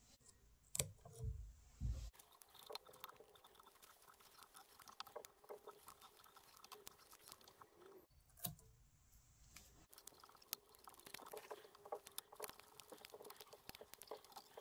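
Faint, rapid ticks and scratchy rustles of tying thread being wrapped around a jig hook held in a fly-tying vise, with a few soft low thumps of handling in the first two seconds.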